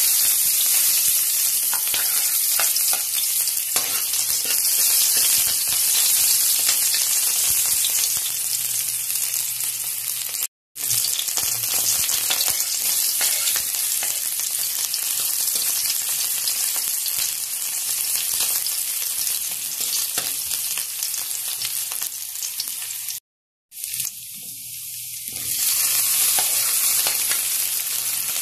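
Chopped onion and garlic sizzling in hot oil in a wok, stirred with a spatula. The sizzle cuts out abruptly twice, about a third of the way in and again near the end, and is softer for a moment before building back up.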